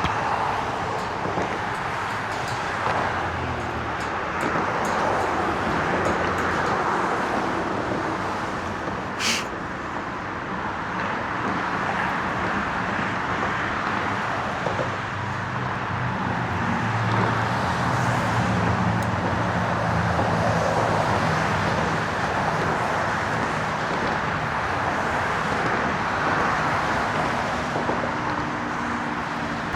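Steady road traffic noise, with an engine's low hum swelling and fading through the middle. A single sharp click sounds about nine seconds in.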